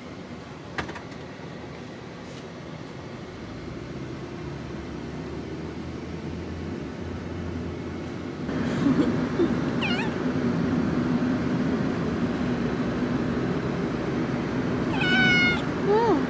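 Young calico kitten meowing: short, high mews, one about ten seconds in and another near the end, over a steady low hum.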